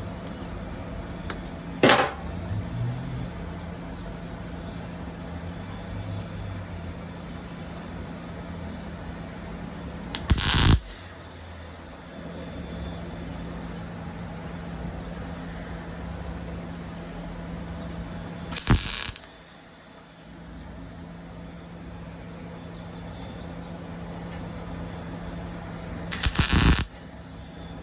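Four short bursts of electric arc welding, each under a second: tack welds laid along split sheet metal on a pickup tailgate, spread out to even out the heat so the panel does not warp. A steady hum runs underneath.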